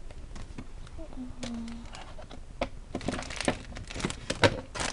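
Paper rustling and crinkling as scrapbook paper pieces are handled, getting busier and louder about three seconds in. A brief low hum comes about a second in.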